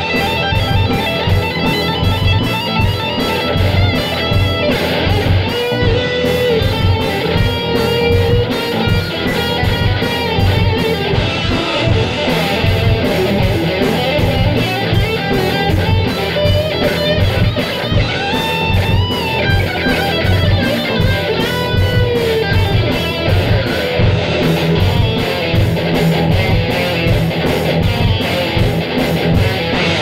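Heavy metal band playing: electric guitars over a steady drum beat with bass.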